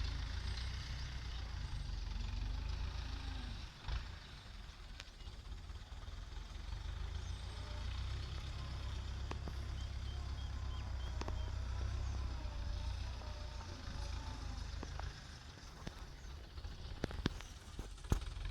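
Tractor engine running at a distance: a steady low rumble that dips briefly about four seconds in and again near the end.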